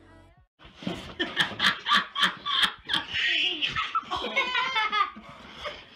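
Hearty belly laughter: a quick run of 'ha-ha' bursts starting about a second in, then higher-pitched laughing.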